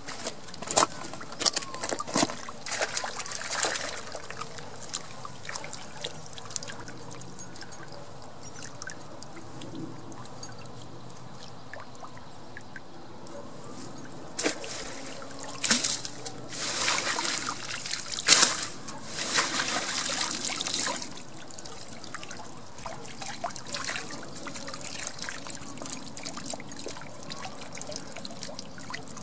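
Water trickling and splashing from a fishing keepnet as it is emptied and dipped in the river, releasing the caught fish back into the water. There is a run of louder splashes about halfway through.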